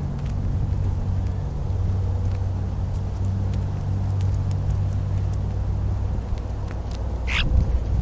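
European starlings feeding at a food pile close to the microphone, with faint pecking taps and one short, harsh squawk about seven seconds in, over a steady low hum.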